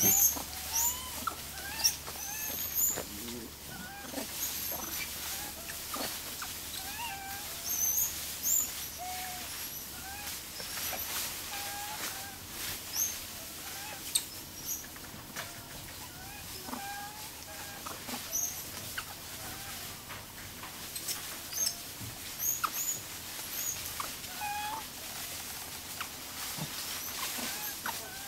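Animals calling in the trees: many short rising chirps scattered throughout, some high and some lower.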